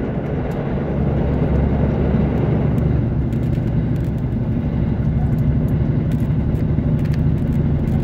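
Diesel engines of a JR KiHa 85 railcar running steadily at speed, a low hum under the rumble of wheels on the rails, heard from inside the car.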